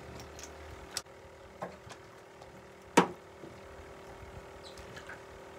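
Knocks from fishing gear being handled in a small boat: a few light clicks, then one sharp, loud knock about three seconds in, over a faint steady hum.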